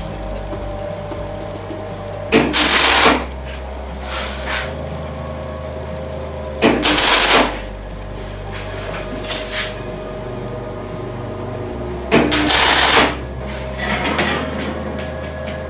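MIG welder tack-welding steel chain rings: three short bursts of welding crackle, each under a second, about four to five seconds apart, with a steady machine hum in between.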